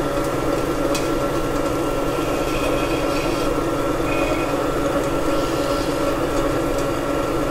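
Premier Wonder Grinder, a small stone melanger, running steadily: a motor drone as its stone wheels roll over cocoa nibs that are being crushed into a paste. There is a single click about a second in.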